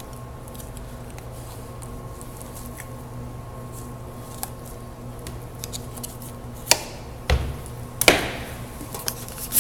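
Butchery work on a lamb carcass: a few sharp knocks and clicks in the last three seconds, against a steady background hum.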